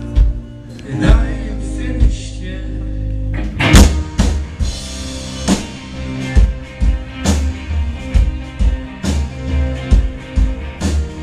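Live rock band playing an instrumental stretch: keyboard and guitar chords over bass, with drum hits and a loud cymbal crash about four seconds in, after which the drums keep a steady beat.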